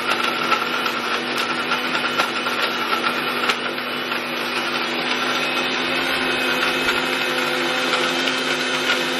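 Electric blender (mixer-grinder) running steadily, blending Snickers bars with milk: an even motor hum and whine that holds one pitch, with a few faint clicks.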